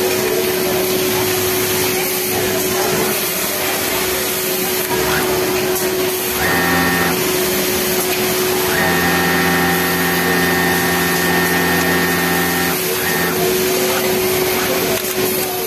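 Yamato industrial flatlock sewing machine running at a steady speed in two stitching runs: a short one about six and a half seconds in, then a steady run of about four seconds starting about nine seconds in. A constant hum from other machines lies under it.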